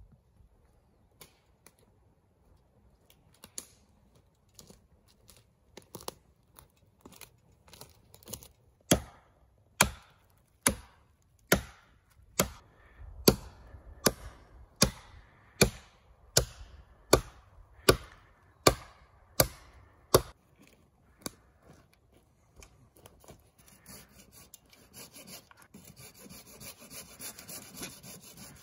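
Wood being chopped: light taps at first, then a run of about fifteen sharp, evenly spaced strikes, roughly one every 0.8 seconds. Near the end a steady scraping rasp on wood takes over.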